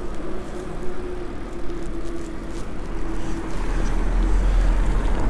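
Road noise of a bicycle ride: wind rumbling on the microphone, growing stronger about two-thirds of the way through, over tyre and traffic noise, with a steady mid-pitched hum for the first few seconds.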